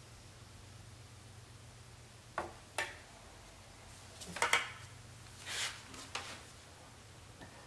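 A few light clicks and taps of a plastic welding iron and gloved hands against a plastic headlight housing, with a soft scrape in the middle, over a faint steady low hum.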